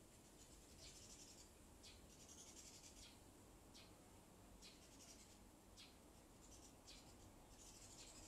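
Near silence: faint outdoor background with a soft, high tick roughly once a second.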